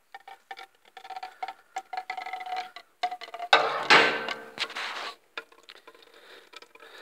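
Screwdriver loosening the slotted screw on the front of a seized Wilo central-heating circulator pump: a run of small metallic clicks and scrapes, with a louder rasping burst about three and a half seconds in.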